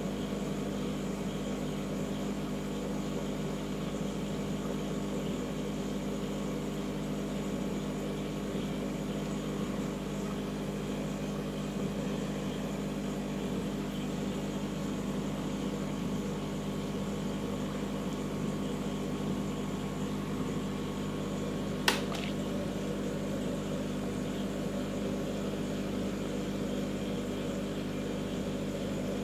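Steady hum of a marine aquarium's pumps and filtration running, several low tones held over a faint hiss. One sharp click late on.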